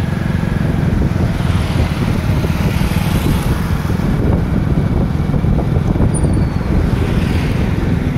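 A motor vehicle's engine running steadily with a low, constant drone, mixed with wind rushing over the microphone, heard from on board the moving vehicle.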